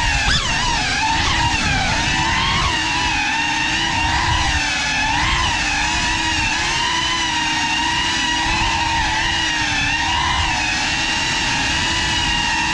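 The brushless motors and ducted propellers of a GEPRC Cinelog35 6S cinewhoop FPV drone, heard from its onboard camera, whining steadily as it flies. The pitch wavers up and down with the throttle, with a quick rise and fall near the start.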